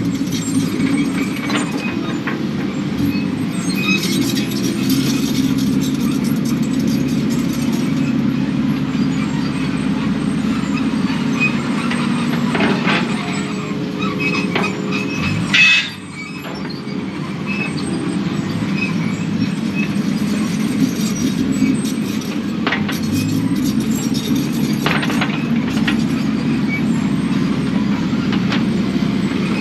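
Kubota KX080 excavator's diesel engine running steadily under load, with scattered metal clanks. A sharp bang comes about halfway through, after which the engine note briefly drops and then builds back up.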